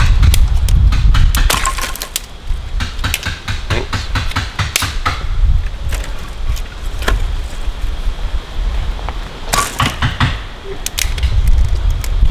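Dry kindling wood cracking and snapping in sharp, irregular pops, clustered about a second and a half in and again near ten seconds. Wind rumbles on the microphone at the start and near the end.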